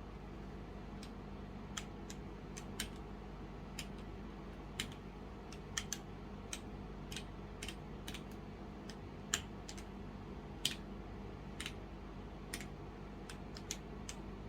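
Single key presses on a Womier K66 mechanical keyboard with stock Gateron Brown switches: sharp clicks coming irregularly, roughly one or two a second, some in quick pairs. These are lighting-mode key presses, not continuous typing.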